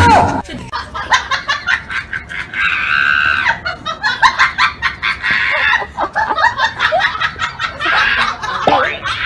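People laughing hard and shrieking, in rapid choppy bursts.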